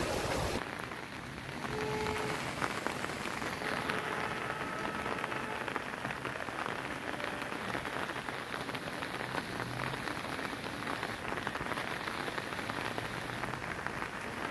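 Heavy rain pattering steadily onto standing floodwater.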